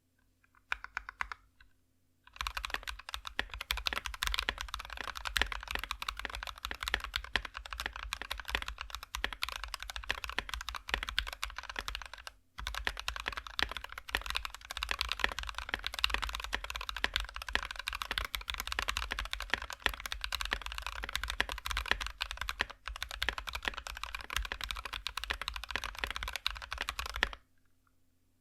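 Fast typing on an NK65 Entry mechanical keyboard with lubed Alpaca linear switches and MT3 Susuwatari doubleshot ABS keycaps: a dense, rapid run of keystrokes with a muted "thock". A few lone keystrokes come first, then steady typing that stops briefly about halfway through and ends shortly before the close.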